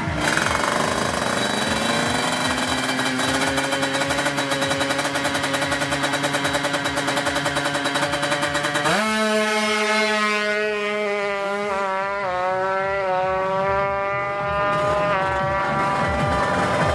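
Tuned two-stroke Kawasaki Ninja drag bike engine, bored to 155 cc, revving and held at high revs, with a fast, even pulsing. The pitch climbs in the first two seconds, holds, then jumps higher about halfway through and holds again, wavering slightly.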